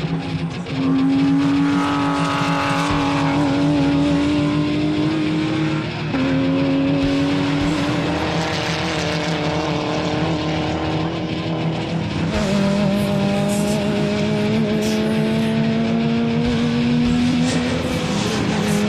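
Race car engine running hard at high revs, its pitch climbing slowly and dropping back at upshifts about six and twelve seconds in.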